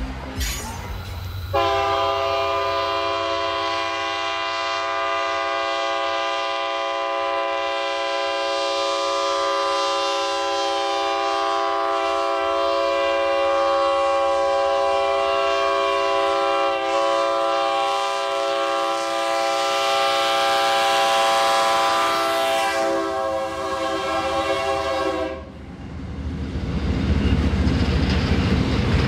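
Diesel freight locomotive's horn sounding one long blast of several tones at once, held for over twenty seconds before it cuts off. Near the end the rumble of the train takes over, growing louder as it comes close.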